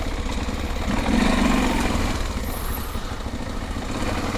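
Honda XR 250 Tornado's single-cylinder four-stroke engine running steadily, with a brief swell a second or so in.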